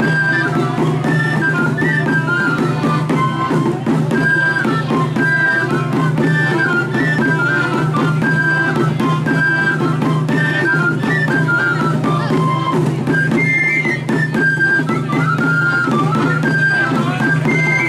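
Live traditional Catalan folk music: a high wind-instrument melody over a steady low drone and drumbeat.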